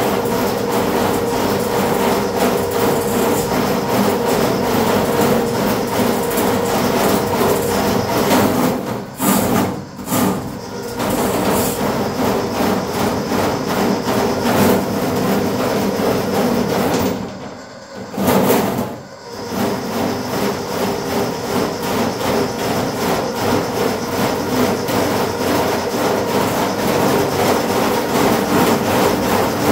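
RIDGID K-50 sectional drain cleaning machine running, its spinning cable rattling as it is worked through a clogged drain line. It stops briefly twice, about nine seconds in and again around seventeen to nineteen seconds.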